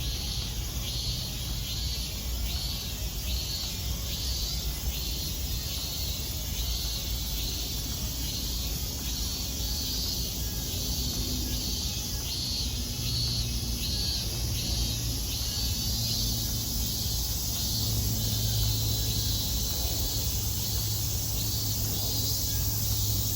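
Summer cicadas singing: a rhythmic pulsing call about twice a second over a steady high buzz.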